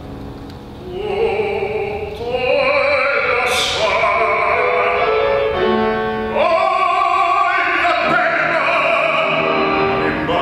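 Operatic baritone voice singing an Italian aria in long, held phrases with vibrato. It starts softer and swells louder about a second in.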